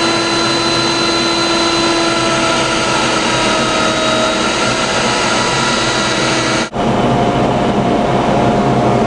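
Table-mounted router running at full speed with a bearing-guided pattern bit shaping a wooden door rail against a template: a steady high whine over the rasp of the cut. It breaks off for an instant about two-thirds of the way through and resumes at once.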